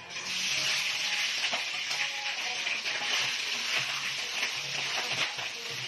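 Food sizzling in hot oil in a pan, the steady sizzle starting suddenly as it goes in, with small crackles throughout.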